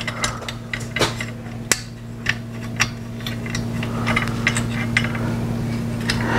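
Small metal parts of a car headlight assembly clicking and clinking as a nut is fitted by hand, a scatter of light knocks over a steady low hum.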